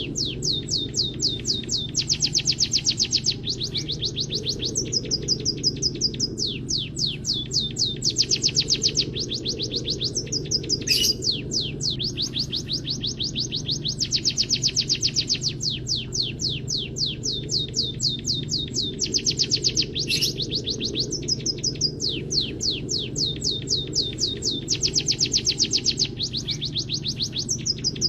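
A munia singing canary-style song: long phrases of very fast, high, falling trilled notes, one phrase after another, over a steady low hum.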